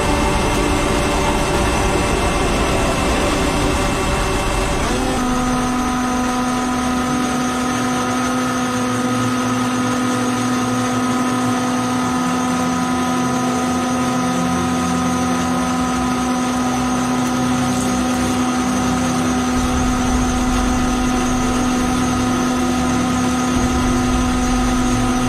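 Excavator engine and hydraulics running steadily while a hydraulic stump-planer attachment is lowered toward the stump. About five seconds in the sound settles into a steady hum with a constant pitch.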